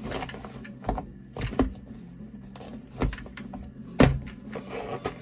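Plastic lunch containers knocking and thudding as they are packed into an insulated, foil-lined lunch bag, with the bag's lining rustling. There are several knocks about a second apart, the loudest about four seconds in.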